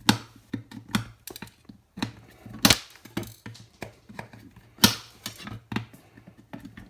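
Irregular sharp clicks and snaps of small plastic pegs being cut off a plastic enclosure with cutters, two snaps louder than the rest.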